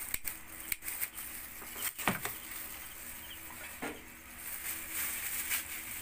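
Light plastic rustling from a gloved hand, with a few small clicks and taps scattered through; the strongest click comes about two seconds in.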